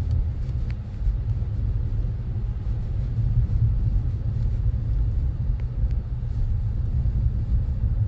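Steady low rumble of a car driving on a snowy road, heard from inside the cabin: tyre and engine noise.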